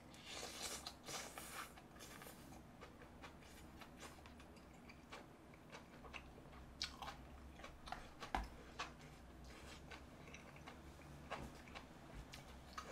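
Faint close-up chewing of a mouthful of mala tang noodles and greens, with a noisy sucking-in of noodles about half a second in. Scattered light clicks follow, some from metal tongs picking at food in the bowl.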